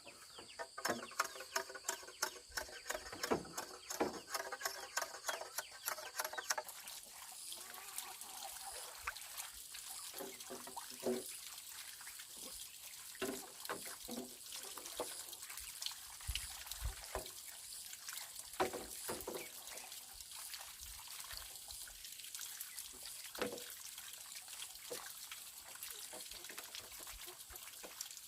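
A quick run of light taps or clicks for the first six seconds or so. Then comes a steady trickle of water, with scattered small clicks and splashes.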